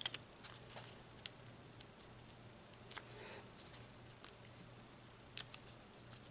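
Hands handling die-cut cardstock flower pieces: faint, scattered paper rustles and light taps, with a few sharper ticks, about three seconds in and again past five seconds. A low steady hum sits underneath.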